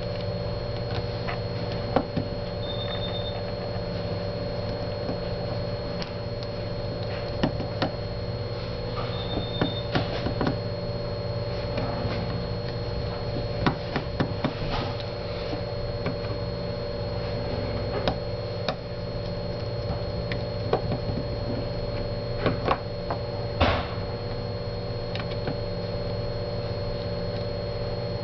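Scattered light clicks and taps of small repair tools (screwdriver, opening tool) working on a BlackBerry Bold Touch 9790's plastic housing, over a steady electrical hum.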